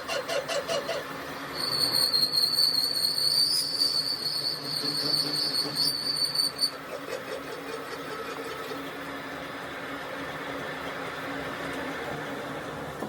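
A machine's high-pitched whine that starts about one and a half seconds in, holds steady for about five seconds and then cuts off, over continuous workshop machinery noise.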